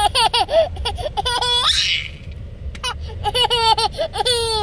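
A toddler laughing hard in quick repeated bursts: one run of laughs, a breathy gasp about two seconds in, then another run of laughs.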